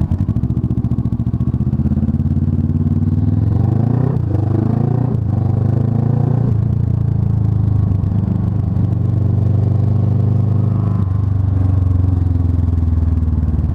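Kawasaki ER-6n parallel-twin engine running as the motorcycle rides at city speed. Its pitch rises and falls around four to six seconds in, then holds steady.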